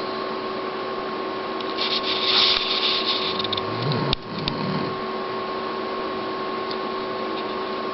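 Sleeping dog breathing noisily: a loud hissing snuffle about two seconds in, then low grunts with a couple of sharp clicks around four seconds. A steady hum runs underneath.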